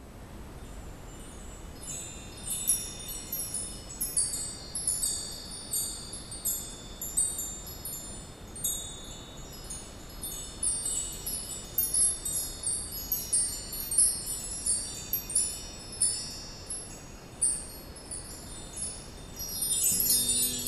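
Wind chimes tinkling irregularly, many light high-pitched strikes ringing over a steady low rush of noise. Near the end a few lower plucked notes come in.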